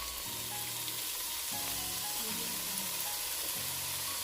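Marinated chicken pieces sizzling steadily in a hot pan of coconut oil with sautéed onion and tomato masala, a constant frying hiss. Soft background music with held low notes plays underneath.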